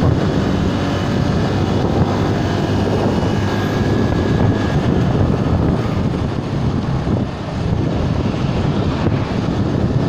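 Bajaj Boxer BM 125 X motorcycle's single-cylinder engine running steadily while riding, mixed with wind rushing over the microphone.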